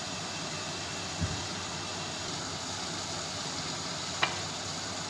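Steady hissing rumble of a gas stove with a covered pot of whole spices boiling on it. There is a light knock about a second in and a sharp click near four seconds.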